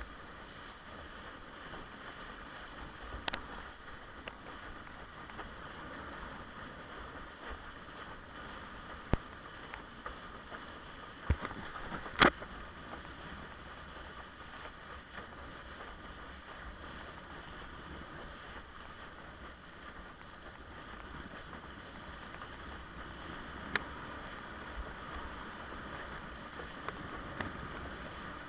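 Windsurf longboard sailing over water: a steady rush of water and wind, with a handful of sharp knocks, the loudest about twelve seconds in.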